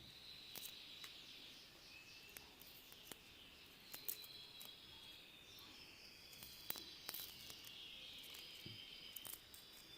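Near silence: a faint high chirring, like insects, with a few soft scattered clicks.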